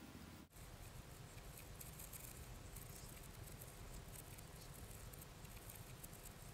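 Fast, dense pattering and clicking of cardboard jigsaw puzzle pieces being handled and swept across a wooden floor, sped up. There is a brief dropout about half a second in.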